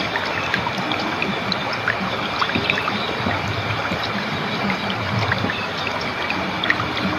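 Shallow stream of water flowing steadily, babbling with many small trickles and droplet splashes.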